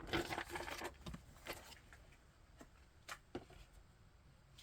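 Faint handling noise: a soft rustle of packaging, then a few scattered light clicks and taps as small accessories and the keyboard are handled.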